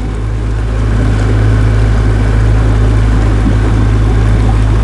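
Motorboat engine running steadily, heard on board: a loud, even low drone with a rushing noise over it that builds slightly in the first second and then holds steady.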